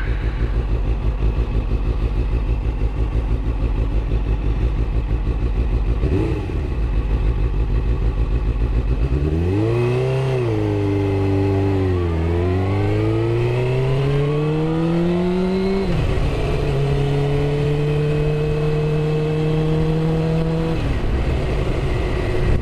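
Suzuki GSX-R inline-four sport bike engine idling with a pulsing beat, then pulling away about nine seconds in. The revs climb, drop at a gear change a few seconds later, climb again to a second shift, then hold steady at cruising speed before dropping once more near the end.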